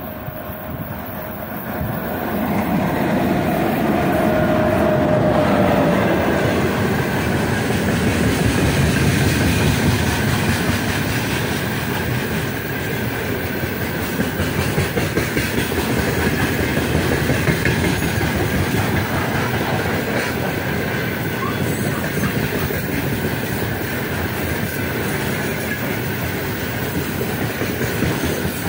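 A 3ES5K Ermak three-section electric freight locomotive passes close by with a heavy freight train of open wagons. The sound swells over the first couple of seconds, with a brief whine falling slightly in pitch as the locomotive goes by. Then comes the steady rumble and clickety-clack of the wagons' wheels on the rails.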